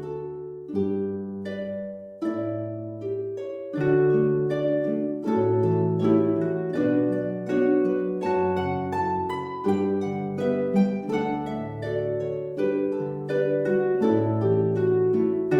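Background instrumental music of plucked strings, each note struck sharply and left to fade, over a low bass line at a steady pulse.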